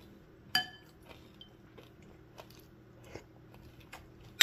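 Tableware clinking: a utensil strikes a ceramic dish once about half a second in with a short ring, followed by faint scattered taps, and a sharper clink of a spoon on a plate right at the end.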